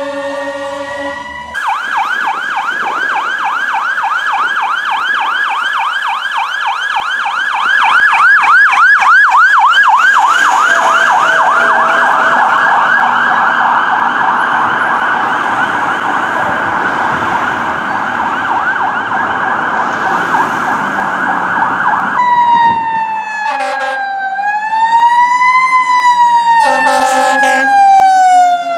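Fire truck sirens from passing apparatus: a fast yelp siren sweeping up and down several times a second, then, after a change about 22 seconds in, a slower rising and falling wail. The wail is broken by two short air horn blasts.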